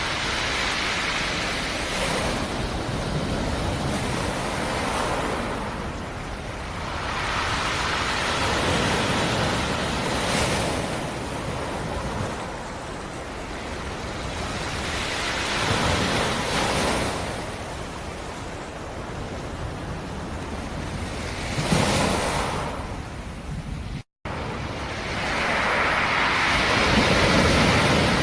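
Black Sea surf: waves rolling in and breaking on the shore, a wash of noise that swells and fades every five to six seconds, some breakers hitting sharper than others. The sound drops out for a split second a little before the end.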